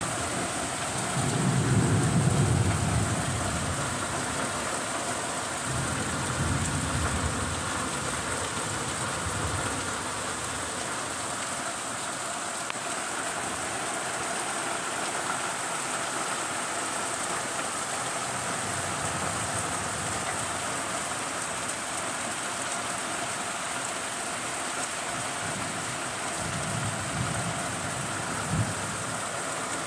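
Heavy rain falling steadily, with low rolls of thunder: the loudest about two seconds in, fainter ones a few seconds later and again near the end. A brief knock comes just before the end.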